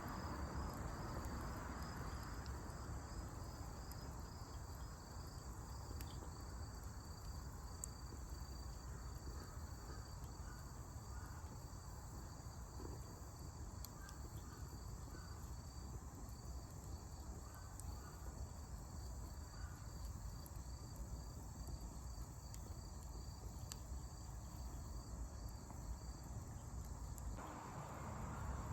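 Crickets chirping: a high, evenly pulsed trill repeating several times a second without letup, with a few faint sharp clicks now and then.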